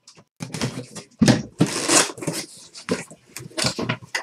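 Cardboard case being lifted and opened by hand: irregular rustling, scraping and tearing of cardboard and packing, loudest a little over a second in.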